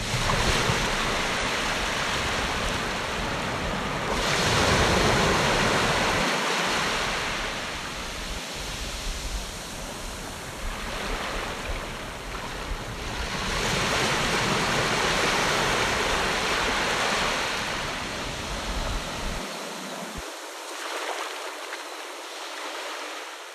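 Sea waves washing onto a shore: a steady rushing surf that swells and fades slowly, growing louder twice.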